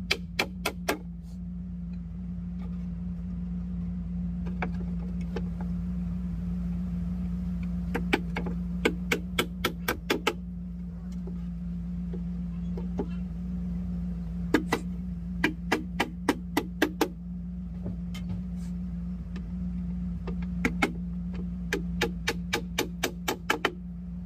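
Claw hammer driving nails into wooden boards, in runs of quick blows about three to four a second with pauses between. A steady low hum sits underneath.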